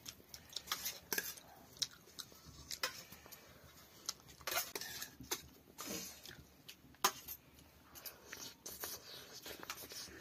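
A metal spoon clinking and scraping against a steel plate of rice, in short, irregular clicks, with a person chewing.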